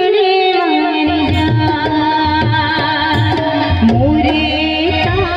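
Live Gujarati wedding song (lagan geet): a woman singing into a microphone over sustained electronic keyboard notes, with tabla beats coming in about a second in.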